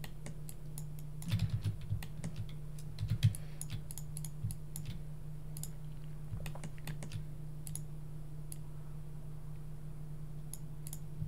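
Computer keyboard keystrokes and mouse clicks, scattered taps with small clusters of louder ones about a second and a half in and again around three seconds, over a steady low electrical hum.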